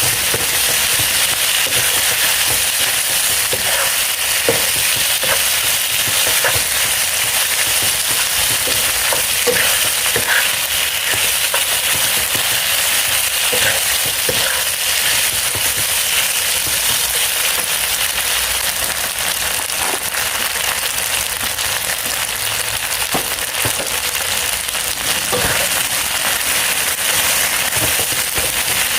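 Food sizzling steadily in a hot pan, with scattered sharp crackles of spattering oil.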